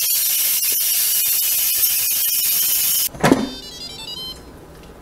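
Instant Pot pressure cooker's quick-release valve venting steam with a loud, steady hiss as the last of the pressure is let out; the hiss stops abruptly about three seconds in. A clunk and a brief run of high tones follow as the lid is opened.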